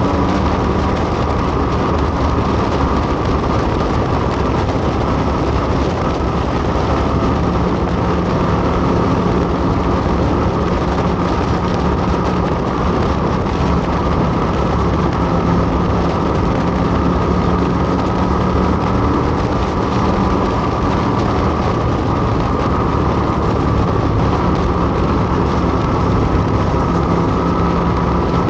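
Motorcycle engine running steadily at an even, unchanging speed while riding, with no revving.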